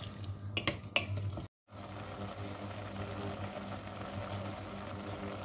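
Wooden spoon stirring scallops and shrimp in white wine in a stainless saucepan, with a few sharp knocks against the pan. After a short break, the wine boils hard with a steady bubbling as it reduces over high heat.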